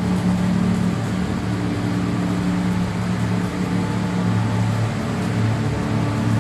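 Steady mechanical hum of running machinery, with several low tones held constant throughout.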